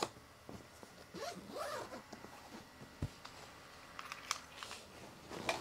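Packing noises at a suitcase: items rustling and scraping as shoes are worked into the bag, with zipper-like rasps and one dull thump about three seconds in.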